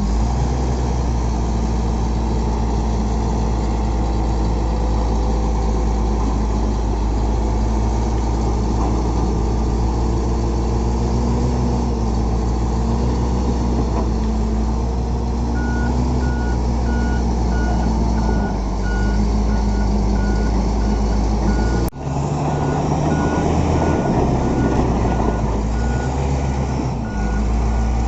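Shantui SD20-5 bulldozer's diesel engine running steadily under load. A little past halfway a reversing alarm starts beeping at an even rate as the machine backs up, and there is a brief sharp break in the sound shortly after.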